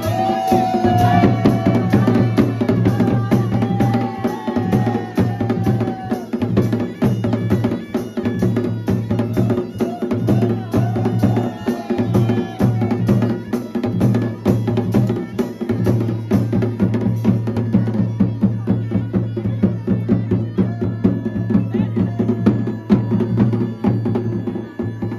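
Pahadi dhol band playing: dhol drums beaten in a fast, steady rhythm over the continuous drone of a masakbeen (hill bagpipe), with a higher melody line held over them in the first few seconds.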